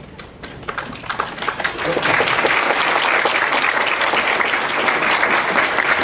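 A large seated audience applauding: scattered claps build into full, steady applause about two seconds in.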